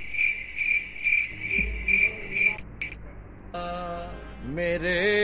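A cricket-chirp sound effect: even high chirps, about two or three a second, that cut off abruptly about two and a half seconds in. About a second later a held, wavering tone with many overtones begins. It slides upward near the end and holds there, like a wailing musical sting.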